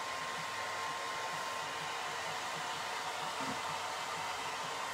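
Steady rushing noise of a running blower, with a thin steady whine held throughout. Under it, faint soft regular scraping of a wooden stick stirring two-part resin in a small plastic cup, about four or five strokes a second.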